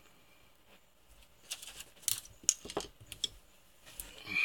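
A few faint, light metallic clicks and taps, scattered over about two seconds after a quiet start: metal parts and a hand tool being handled on a small metal lathe.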